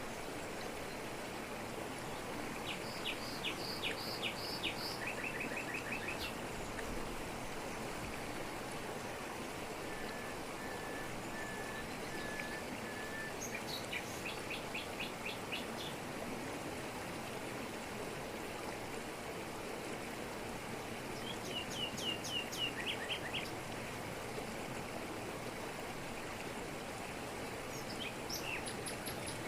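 Steady rushing of a jungle waterfall pouring over rocks, with songbirds calling over it in several short bursts: quick trills of high chirps, and a row of five even whistled notes about ten seconds in.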